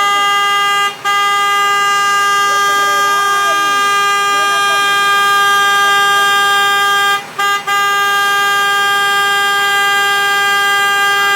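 A New York City sanitation truck's horn blaring in long, steady held blasts, broken off briefly about a second in and again about seven seconds in.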